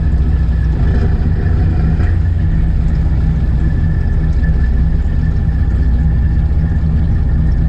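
Fishing boat's engine running steadily, a low even drone with a hum of several steady tones over it.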